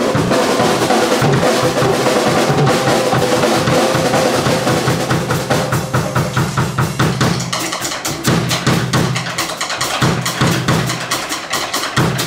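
Live instrumental band playing: a drum kit with snare and cymbal strokes over electric bass and guitar. The drumming grows busier about halfway through.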